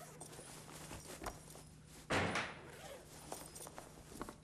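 A bathroom stall door being shut, with one loud bang about two seconds in and scattered lighter clicks and knocks before and after it.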